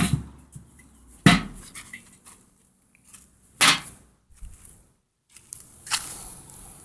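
Three sharp knocks a second or two apart, then a rustling hiss near the end.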